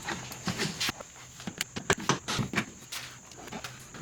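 Irregular small clicks and knocks of hand tools and plastic trim being handled while the cowl panel of a car's engine bay is taken off.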